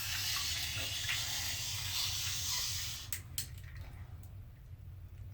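Water in a tub swishing and splashing, a steady hiss for about three seconds, then a couple of sharp clicks, after which it goes quieter.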